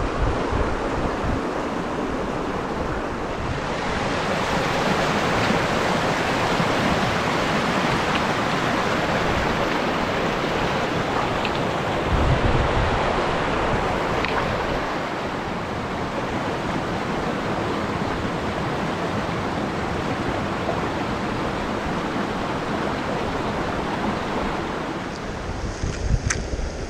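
Steady rush of flowing river water, with wind buffeting the microphone at the start and about twelve seconds in.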